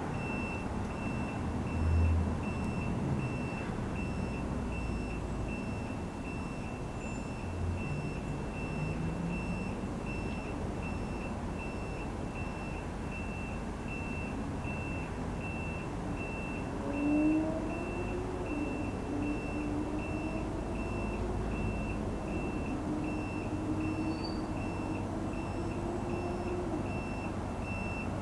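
A high electronic beep repeating evenly and without a break, over a steady low rumble from a distant approaching electric passenger train. Near the end a few wavering mid-pitched tones come and go.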